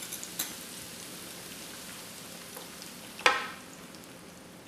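Cauliflower and ham sizzling in butter in a hot electric skillet as a cream-and-flour mixture is poured over them. The hiss fades slowly, and a single sharp clink comes about three seconds in.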